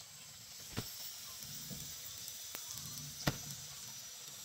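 Three short sharp knocks, the loudest a little past three seconds in, over a steady faint hiss.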